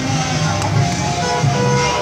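Background music with a repeating bass line and held melody notes.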